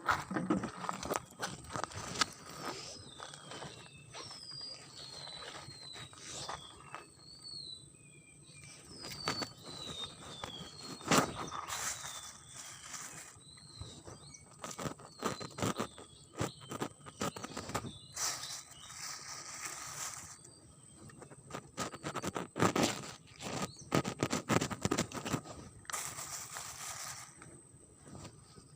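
A bird calling over and over with short, high, falling chirps for much of the first half, amid scattered clicks and knocks, with one sharper knock about eleven seconds in.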